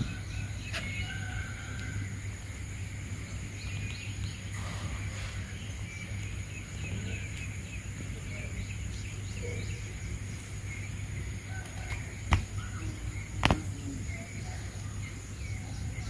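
Outdoor ambience: small birds calling in the background over a steady low hum, with two sharp knocks about a second apart near the end.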